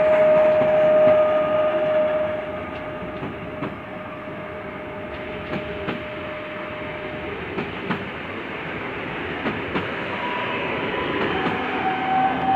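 Pesa Dart (ED161) electric multiple unit passing slowly, its wheels giving single clacks over the rail joints of the level crossing every second or two, over a steady rolling noise. A steady whine is loudest in the first two seconds and fades out about seven seconds in; another whine comes in near the end.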